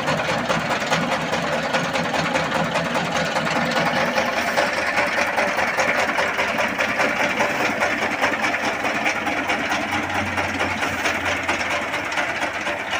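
S1115 single-cylinder diesel engine running steadily, belt-driving a grain mill. Engine and mill together make a loud, fast, even mechanical clatter.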